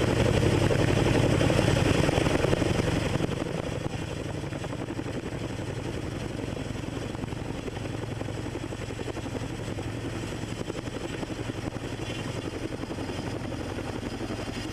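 Boeing CH-47 Chinook tandem-rotor helicopter carrying a sling load, its rotors beating rapidly over the steady noise of its twin turboshaft engines. The sound is loud at first, then drops about three seconds in and stays steady as the helicopter moves off.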